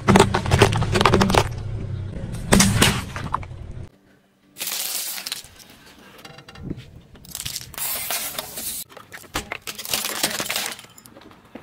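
A car tyre rolling over and crushing a run of objects (round eggplants, candy strips, a plastic toy car), giving several separate bursts of cracking and crunching. There is a brief break about four seconds in.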